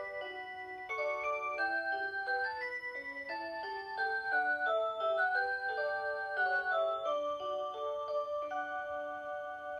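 Rhythm Aria Cantabile alarm clock playing its Aurora Sound electronic melody: a tune of clear, bell-like tones with several notes sounding together. The tune stops abruptly at the very end.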